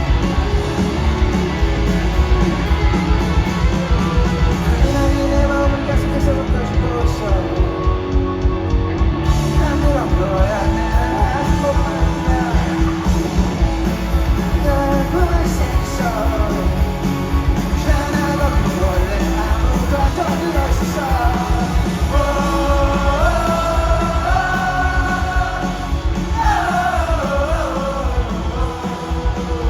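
Rock song with singing over guitars and a steady beat.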